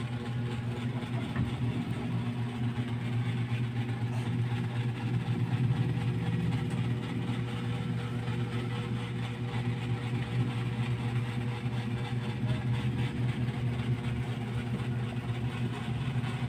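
A steady low mechanical hum with a constant drone, like a motor or engine running without change.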